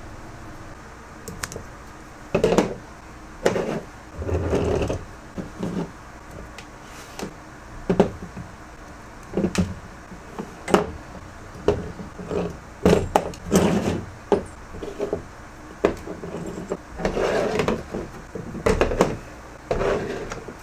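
Small metal parts, hand tools and a roll of electrical tape being picked up, handled and set down on a plastic folding table: an irregular string of clicks, knocks and short rustles, starting about two seconds in.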